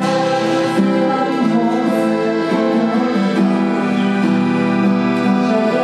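Live music from a sung-poetry concert: steady chords held for a second or more at a time, changing a few times.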